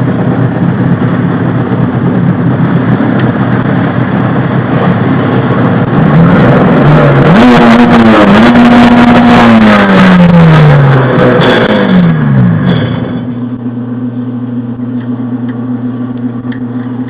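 Jet ski engine running. It is revved up and down several times through the middle, then drops back to a steady, quieter idle about two-thirds of the way through.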